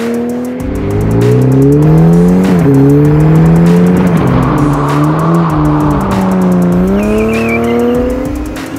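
Toyota GR Supra with a Dinan valved exhaust, driven hard. The exhaust note rises in pitch, drops briefly about 2.5 and 4 seconds in and again near 7 seconds, then climbs again. Background music plays underneath.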